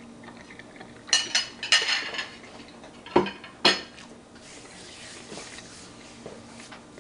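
Metal fork and ceramic plate clinking, several sharp clinks with a short ring between about one and four seconds in, as they are set down on a kitchen counter.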